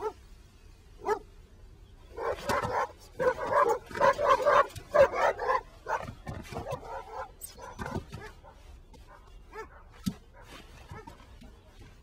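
A quick run of short, pitched vocal cries, loudest from about two to six seconds in, then thinning out to a few scattered ones.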